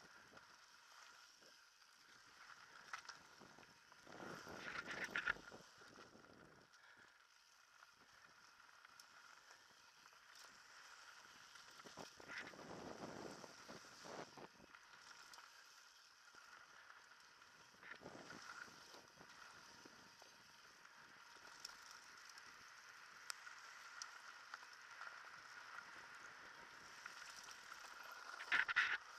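Mountain bike riding down a dirt trail: tyres rolling over the dirt and the bike rattling, with a few louder bursts of clatter over bumps, the last one near the end.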